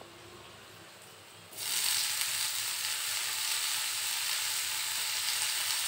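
Chopped tomato going into hot oil in a frying pan: a faint sizzle jumps suddenly to a loud, steady sizzle about a second and a half in as the tomato hits the oil.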